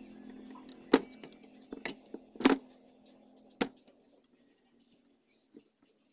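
A low hum dies away, then four sharp clicks about a second apart as hands handle the high-voltage wiring around a CRT television's flyback transformer; the first click is the loudest.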